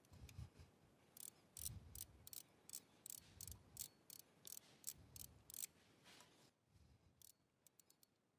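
Ratchet socket wrench clicking as the radiator's coolant drain bolt is screwed back in and tightened: a run of faint, sharp clicks about three a second, thinning out after about six seconds.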